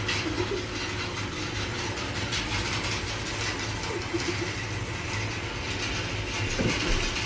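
Hay bale elevator running: a steady low motor hum under continuous fine mechanical rattling from the conveyor chain carrying bales up the incline.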